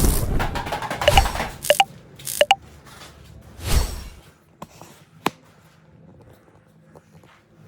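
A series of knocks, clatters and scrapes from objects being handled and set down, several taps giving a short ringing ping, with a last sharp tap about five seconds in.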